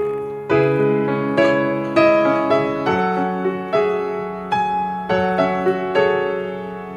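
Piano music, with notes and chords struck about twice a second, each left to ring and fade.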